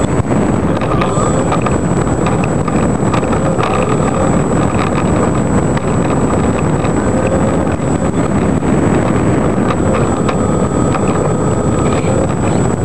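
ParkZone T-28 Trojan RC plane's electric motor and propeller running with a steady whine that rises and dips slightly in pitch, under heavy wind rush on the microphone.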